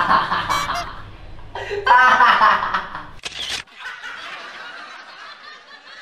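A man laughing loudly with his head thrown back, in a few loud bursts, then trailing off more quietly after about three and a half seconds.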